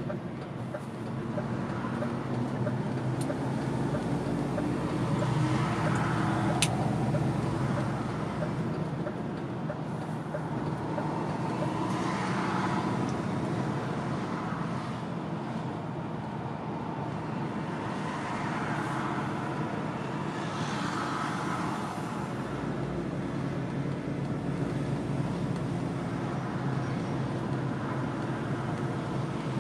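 Truck engine running and tyre noise on the road, heard from inside the cab while driving, a steady low hum that swells a little now and then.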